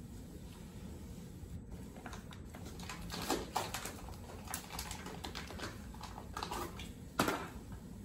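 Fiberglass cast tape crackling as it is pulled off the roll and wrapped around a leg: a run of short, irregular crinkly clicks, the loudest near the end.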